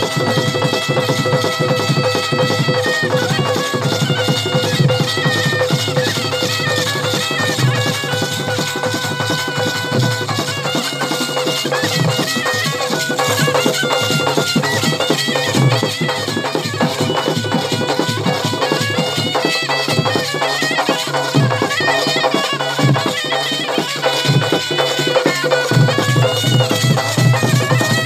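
Gudum baja folk band playing live: a loud reed pipe carries an ornamented melody over a steady drone, with drums beating throughout.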